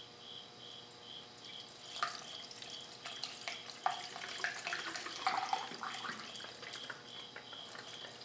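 Engine coolant poured from a plastic jug into a motorcycle's plastic coolant reservoir, gurgling and splashing unevenly, starting about two seconds in.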